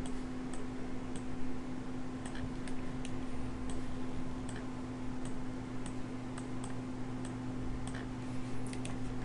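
Computer mouse clicking irregularly, about two clicks a second, while vertices are selected and dragged, over a steady low electrical hum.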